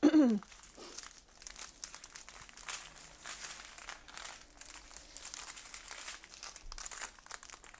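Small zip-top plastic bags of diamond-painting drills crinkling as hands pick them up and sort them, in irregular rustles.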